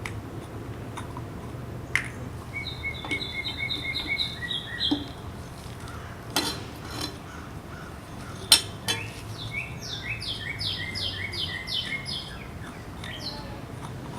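A songbird singing two phrases of quickly repeated notes. A few sharp knocks fall between the phrases over a steady low background hum.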